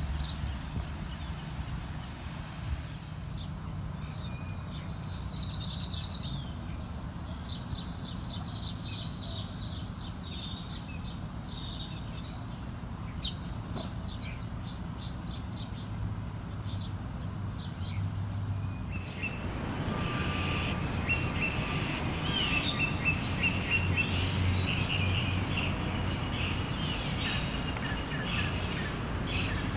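Small birds chirping repeatedly over a steady low outdoor rumble. About two-thirds of the way through, the background changes abruptly and the chirping becomes louder.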